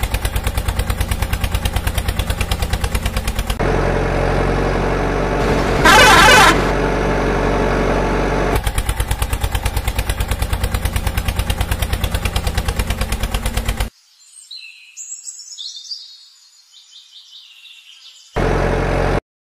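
Tractor engine chugging with rapid even beats, settling into a steadier hum for a few seconds with one brief loud burst about six seconds in, then chugging again until it cuts off about fourteen seconds in. Faint bird chirps follow, and the engine comes back briefly near the end.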